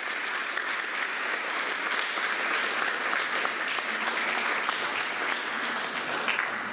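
Audience applauding, many hands clapping steadily and fading near the end.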